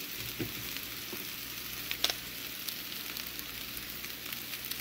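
Potatoes, onions, sausage and hot dogs sizzling steadily in bacon grease in a cast iron skillet, with a couple of short crackles about half a second and two seconds in.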